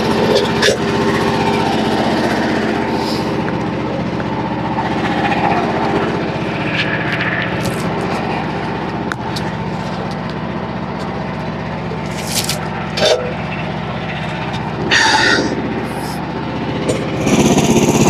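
Small gasoline engine of a Frontier OS27 portable bandsaw mill idling steadily, with a few short knocks from the cant and a removable bunk being moved on the steel track.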